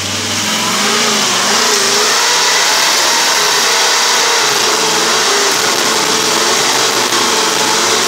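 Off-road rig's engine revving hard as it claws up a steep dirt hill, its pitch swinging up and down with the throttle, over a dense hiss of wheels spinning and spraying loose dirt.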